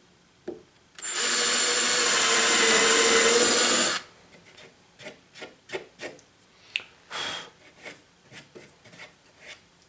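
Ryobi cordless drill running for about three seconds as its bit bores into a wooden board, a steady whine under the noise of the cutting. It is followed by scattered light clicks and knocks, with one brief burst about seven seconds in.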